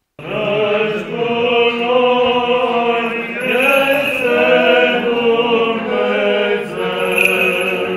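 Orthodox church chant: voices singing a slow liturgical melody on long held notes, starting suddenly just after the beginning.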